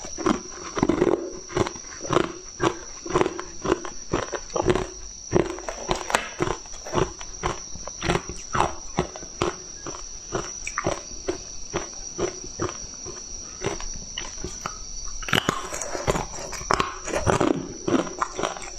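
Crunching and chewing of hard frozen ice pieces right at a clip-on microphone, a sharp crunch every half second or so, with a denser stretch of crunching about two-thirds of the way in.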